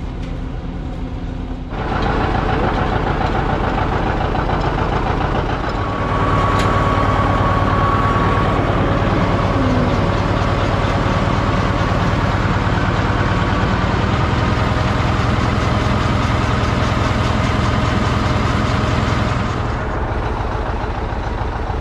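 A vehicle engine running steadily. It picks up about two seconds in, gets louder again about six seconds in, and eases off near the end.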